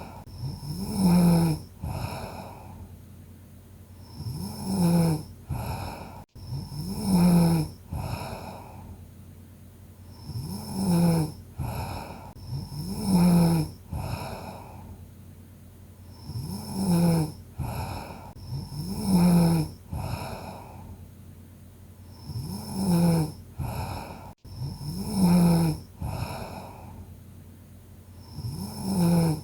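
A sleeping person snoring in a steady rhythm: pairs of snores about two seconds apart, repeating roughly every six seconds.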